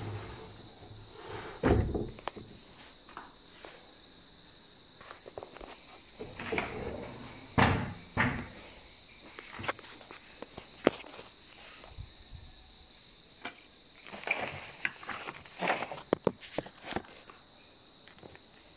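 Sliding cabinet doors being handled: scattered knocks, clicks and thumps as the panels are moved along their track and bumped against the frame, mixed with a few footsteps. There are sharp thumps about two, eight and eleven seconds in and a quick run of clicks about fifteen to seventeen seconds in, over a faint steady high whine.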